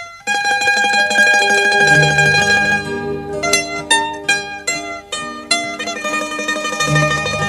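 Instrumental opening of a Hindi film song: a plucked string instrument plays a melody of ringing notes, each struck sharply and fading, over a low sustained note.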